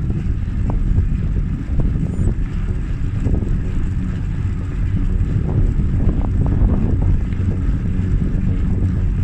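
Wind rushing across a bike-mounted microphone together with tyre noise from a Specialized Stumpjumper Comp Carbon 29er hardtail riding uphill on tarmac. A few faint ticks sound here and there.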